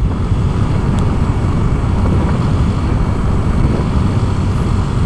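Yamaha Avantiz scooter cruising along, heard as a steady low wind rumble on the microphone over engine and road noise.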